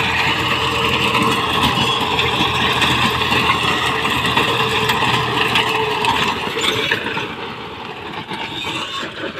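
John Deere 5045 tractor engine running steadily under load while its rear-mounted rotavator churns dry soil, a dense mechanical clatter over the engine hum. The sound eases off somewhat in the last couple of seconds.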